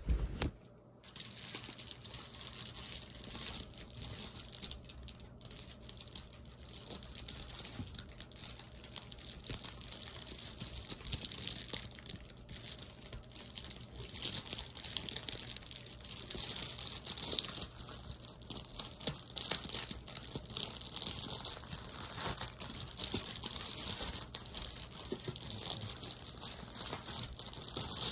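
Plastic packaging bag crinkling and rustling continuously, a dense run of small crackles, as a boxed item is pulled out and unwrapped. A single knock right at the start.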